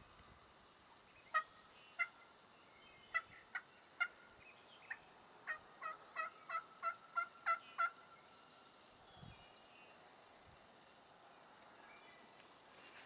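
Turkey yelping: a string of short, sharp yelps, spaced out at first, then a quicker run of about ten at roughly three a second that stops about eight seconds in.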